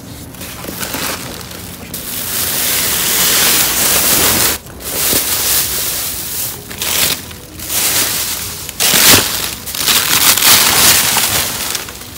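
Plastic bags and bubble wrap crinkling and rustling loudly as hands dig through them, in several long stretches with short pauses between.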